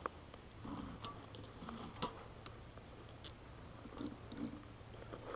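Faint handling noise from fishing tackle and a hooked fish: a few sharp clicks and soft rustles over a low steady hum.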